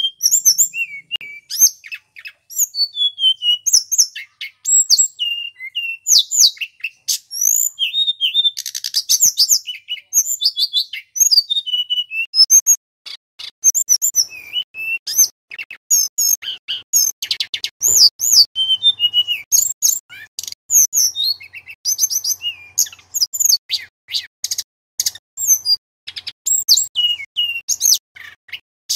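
Male tledekan gunung, a Cyornis blue flycatcher, singing without pause: a fast, varied stream of high whistled phrases, up-and-down sweeping notes and quick trills.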